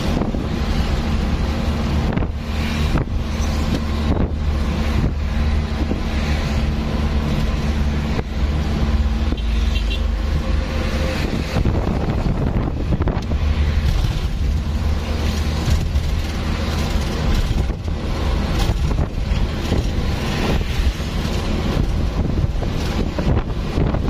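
An engine running steadily with a loud low hum, with wind buffeting the microphone.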